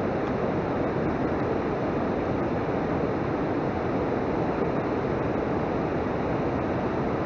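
Steady, even rushing noise with no distinct events, of the kind made by wind on the microphone or moving water.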